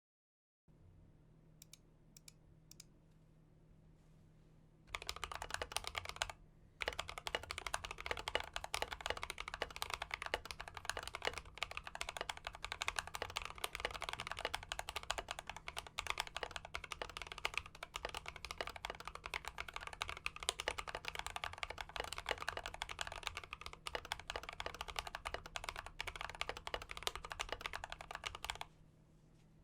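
Rapid continuous typing on a mechanical keyboard fitted with Akko CS Silver linear switches, as a sound test of the switches. A few faint clicks come first. The typing starts about five seconds in, breaks off briefly, and stops shortly before the end.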